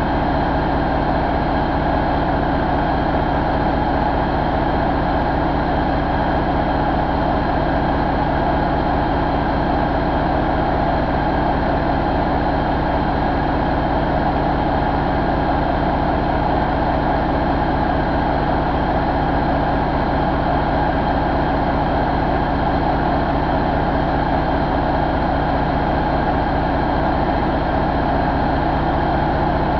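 2013 International MaxxForce 13 inline-six diesel engine idling steadily, test-run on a stand out of the truck.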